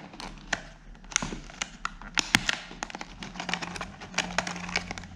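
Clear plastic box of a small camera tripod handled and worked open by hand: irregular sharp clicks and crackles of the stiff plastic packaging.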